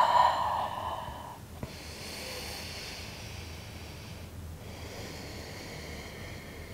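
A woman breathing audibly through the nose and mouth while holding downward-facing dog. A big out-breath fades over the first second or so, followed by two slow, long breaths.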